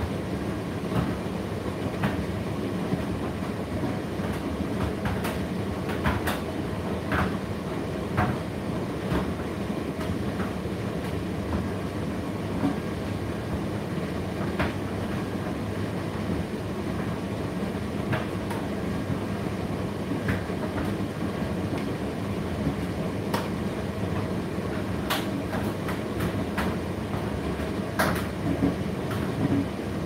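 Indesit IDC8T3 condenser tumble dryer running mid-cycle: a steady rumble of the turning drum and fan, with scattered light clicks and knocks at irregular intervals.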